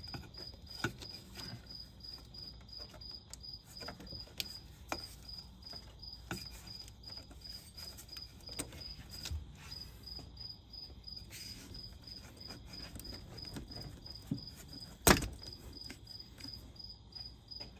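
Light clicks and knocks of a Duramax diesel's intercooler pipe being fitted back into place by hand, with one louder sharp clunk about fifteen seconds in. A steady, evenly pulsing high chirp runs underneath.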